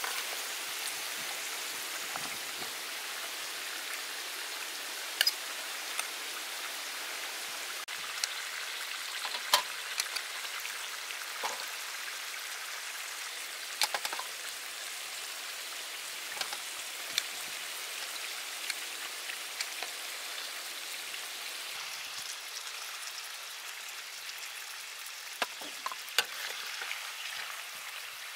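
Beef ribs and vegetables sizzling in a wok as the braising sauce reduces to a glaze: a steady hiss with scattered sharp clicks and pops.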